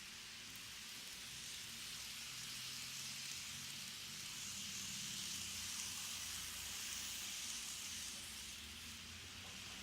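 Faint steady hiss with a low hum underneath, swelling slightly in the middle: background room tone or recording noise.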